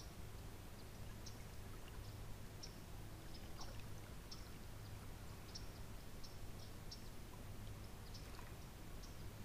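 Quiet outdoor ambience: a faint, steady low hum under scattered faint high ticks at irregular intervals.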